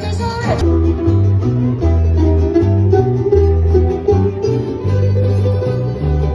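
Ensemble of guitars and smaller mandolin-like plucked-string instruments playing a tune over a stepping bass line. Under a second in, the earlier dance music cuts off and gives way to this.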